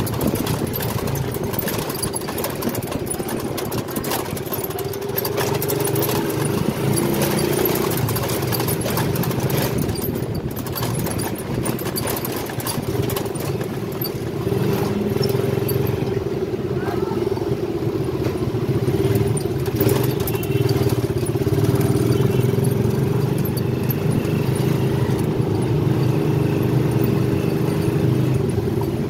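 Motorcycle engine running steadily at low riding speed, its pitch barely changing.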